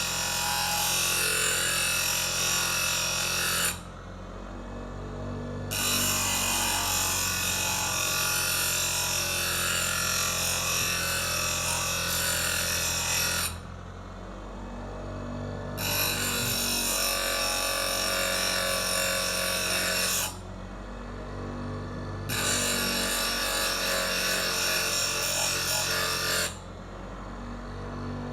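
A grinder grinding a steel knife blade in four passes, each a loud, hissing grind that stops abruptly when the blade is lifted. Between the passes the motor keeps running with a steady hum.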